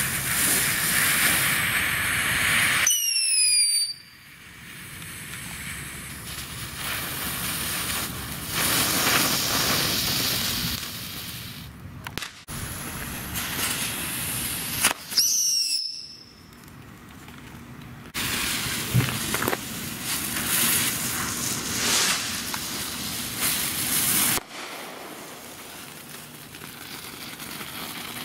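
Ground novelty fireworks burning one after another, among them a TNT 'Cock Crowing At Dawn' rooster and a Dominator 'Chicken Laying Egg': each sprays sparks with a loud hiss. A short high whistle falling in pitch comes about three seconds in and again about fifteen seconds in.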